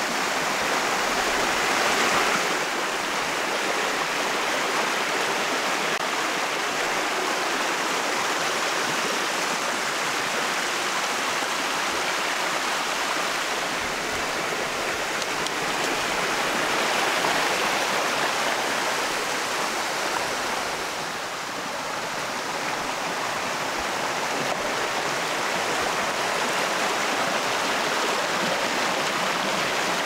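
Shallow forest stream flowing over rocks and small cascades: a steady rush of water, swelling slightly about two seconds in and easing a little around twenty seconds.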